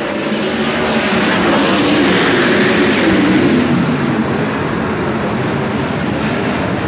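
A pack of 410 sprint cars racing past on a dirt oval at full throttle, their methanol V8s blending into one dense engine noise. It swells as the field goes by, loudest about three seconds in, then eases.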